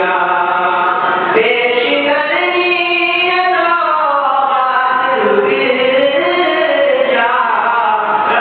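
A single male voice chanting a slow, melodic recitation, with long held notes that glide up and down in pitch.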